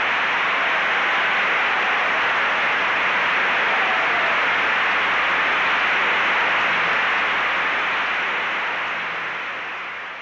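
Theatre audience applauding in a steady, even wash after a ballet dance, fading out near the end.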